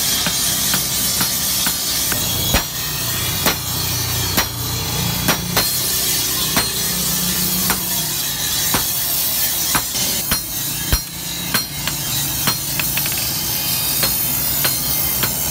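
Hammer blows ringing on red-hot steel held on an anvil, a steady series at roughly two strikes a second, over a constant hiss and low hum.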